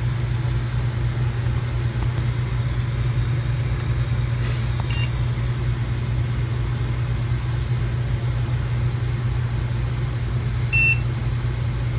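Steady low whir of a desktop PC's cooling fans running with the case open. Two short, faint electronic beeps sound over it, about five seconds in and again near the end.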